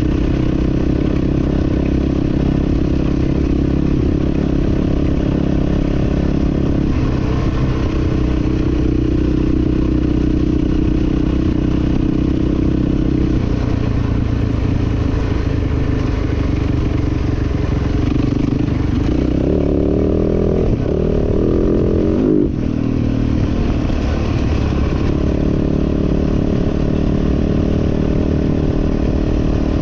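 Motocross bike engine running hard as it is ridden, the note shifting in steps and swooping up and down, with a brief drop about two-thirds of the way through.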